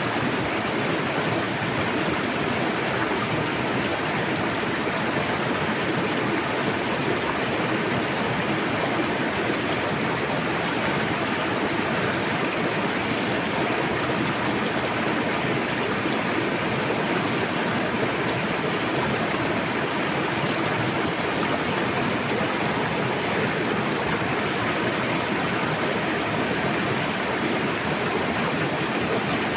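River water rushing over rocks in a steady, even rush with no breaks.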